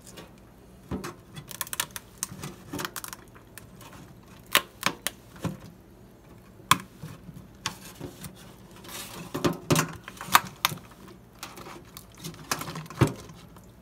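Thin plastic Tupperware container being flexed and pressed by hand against a stainless steel sink, giving irregular sharp clicks and crackles in clusters as the ice shell inside is worked loose from the walls.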